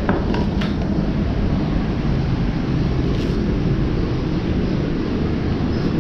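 Steady low rumble of running machinery, with a few light clicks and taps over it.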